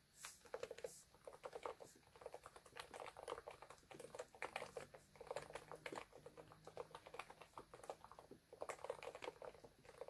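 Fast typing on a Noppoo (NiZ) electrostatic-capacitive keyboard: a dense stream of keystrokes in bursts, with short lulls a few times.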